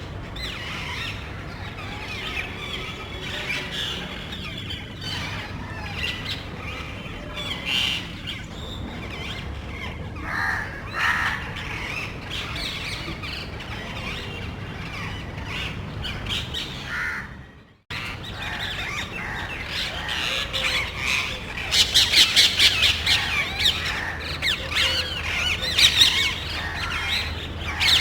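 A small group of parrots squawking loudly and continuously. The sound cuts out abruptly for a moment about two-thirds of the way in. After that the squawking comes back louder and denser.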